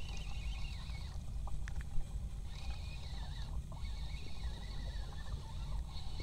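Steady low rumble of wind and water around a small fishing boat at sea, with a faint wavering high tone over it and a single sharp click about two seconds in.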